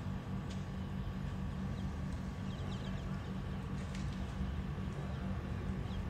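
Faint, scattered high chirps and squeaks from a large flock of small birds wheeling overhead, over a steady low rumble.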